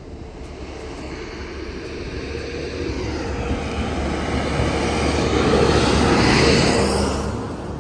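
Dump truck driving past on the road: its engine and tyres grow steadily louder as it approaches, are loudest as it passes about six seconds in, then fade as it moves away.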